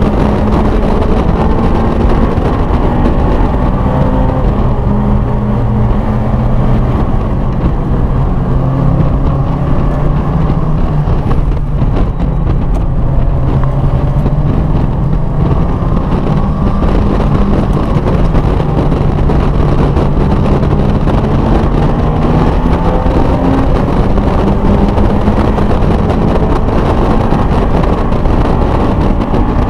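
A car's engine heard from inside the cabin during a hard track lap, over heavy wind and road rumble. The engine note falls as the car slows for a corner about twelve seconds in, then climbs steadily as it accelerates away.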